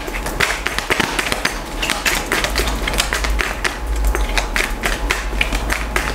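A deck of tarot cards being shuffled by hand, the cards clicking against each other in quick, irregular taps, several a second.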